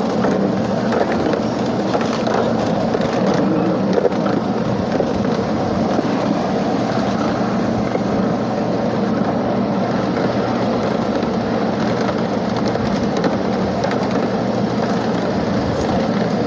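Ride-on miniature railroad train running along its track: the cars' wheels on the rails make a steady rumble.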